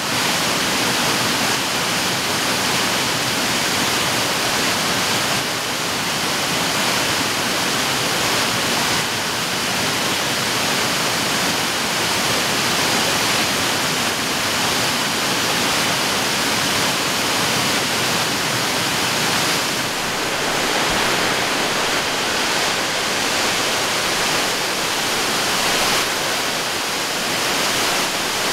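Cascading waterfall pouring over stepped rock ledges: a steady, unbroken rush of falling water.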